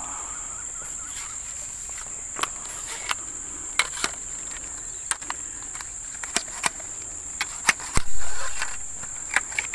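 Insects chirring in a steady high drone, with scattered sharp clicks and knocks; the loudest knock, about eight seconds in, is followed by a short fading rush of noise.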